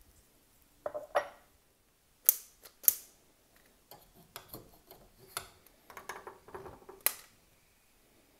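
Metal clanks and sharp clicks as a small saucepan is set on a gas range's cast-iron grate and the burner is turned on and lit. There is a cluster of smaller ticks before a last sharp click near the end.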